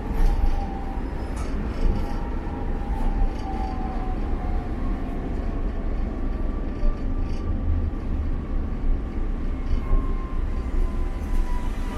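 Inside a Tatra KT4YU tram in motion: the steady rumble of the car running on the rails, with scattered small clicks and rattles and a whine that slowly falls in pitch.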